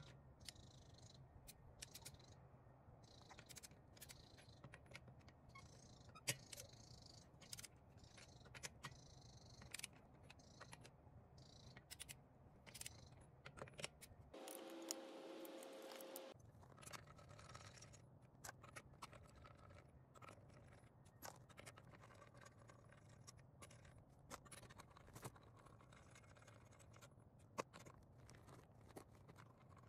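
Faint, irregular ratchet clicking of a torque wrench working wheel lug nuts loose, over a low steady hum; about halfway through the hum gives way to a brief two-note tone.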